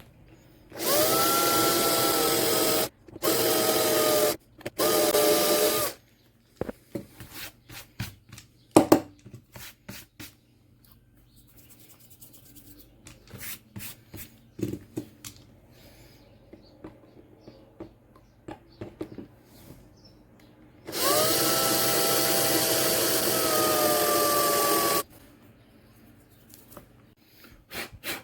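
Cordless drill drilling out the rivet of a die-cast Hot Wheels car's base, running in short bursts. It runs three times in the first six seconds, then once more for about four seconds later on. Its whine sags slightly in pitch as the bit bites. Between runs come faint clicks and handling noises, with one sharp knock.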